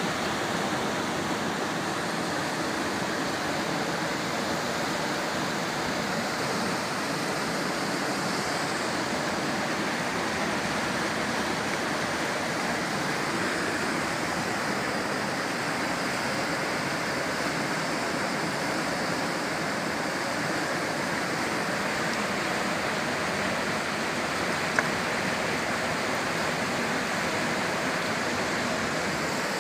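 Steady rush of river water flowing over rocks, with one brief sharp click near the end.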